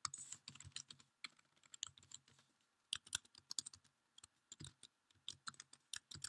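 Faint typing on a computer keyboard: irregular keystrokes in short clusters, with pauses between them.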